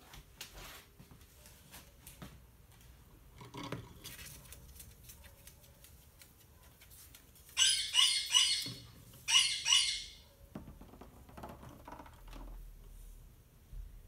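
Rose-ringed parakeet giving two bursts of shrill screeches a little past the middle, each of two or three quick calls. Light clicks of claws on wood before them.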